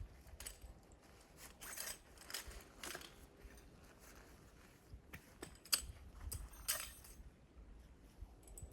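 Scattered clicks, scrapes and rustles of camp gear being handled, over a low rumble.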